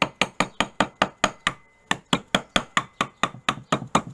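Rapid, even hammer blows, about five a second, of a softer-faced sheet-metal hammer on copper sheet over an anvil, with a short pause about one and a half seconds in before the strikes resume.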